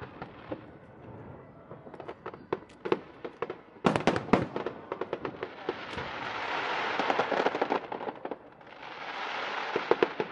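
Aerial fireworks bursting in quick succession: a string of sharp bangs, densest about four seconds in, then two long swells of crackling from glittering shells about six and nine seconds in.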